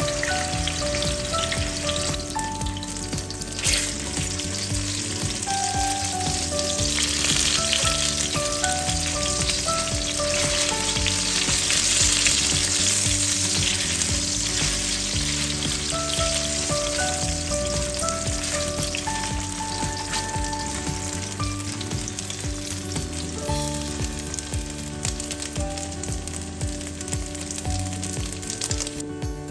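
Imitation crab sticks sizzling as they shallow-fry in hot oil in a stainless steel pan, now and then pushed about with a spatula. The sizzle is loudest in the middle and drops near the end, with background music playing throughout.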